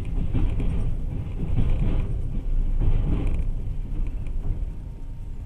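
Passenger train running on the rails: a steady low rumble with three louder swells in the first three seconds, easing off toward the end.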